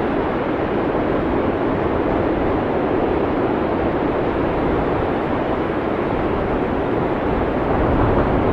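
Heavy blizzard wind blowing steadily as a dense, even rushing noise, with no single gusts standing out.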